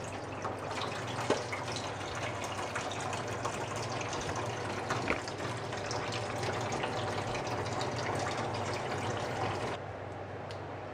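Kitchen faucet running steadily into a stainless steel sink, with a couple of sharp knocks. The water sound stops suddenly about a second before the end, leaving a low steady hum.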